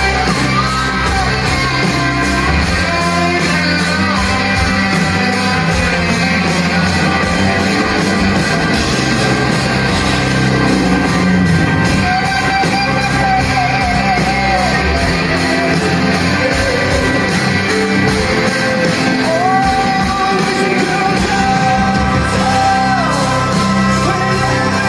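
Live rock band playing, with a singer holding long notes over electric guitars. The sound carries the echo of a large hall.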